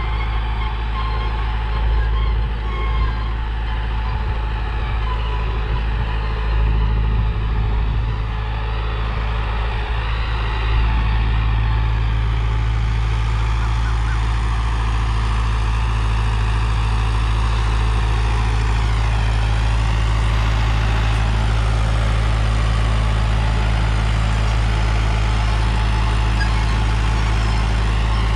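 Tractor diesel engine running steadily under load while pulling a harrow, a constant low drone. It grows slightly louder and steadier about 11 seconds in.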